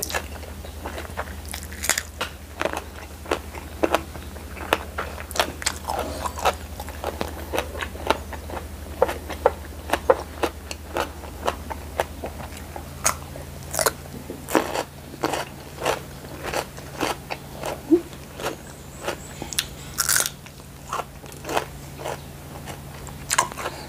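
Close-miked crunching and chewing as raw young Thai eggplant is bitten and eaten, a long run of crisp crunches every half second or so. A steady low hum runs underneath.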